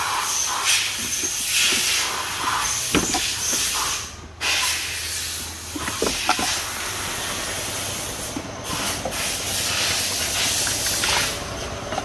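Loud, steady hiss of pressurised gas jetting from an air-conditioning line or nozzle. It cuts off sharply about four seconds in, then resumes, with a short break again past the eight-second mark and a softer tail near the end. A few light knocks are heard.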